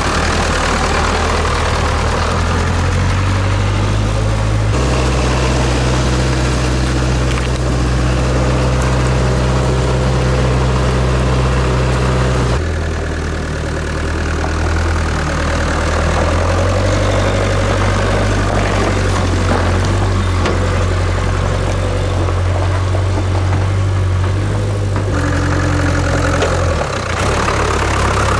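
Land Rover Santana 109 engine running steadily at idle-like speed, its low note jumping abruptly to a different pitch three times.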